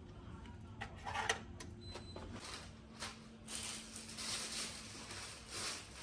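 Hotel key card slotted into the wall power switch: a few clicks, then a faint short electronic beep, and the room's power comes on with a low steady hum. Bursts of rustling noise follow in the second half.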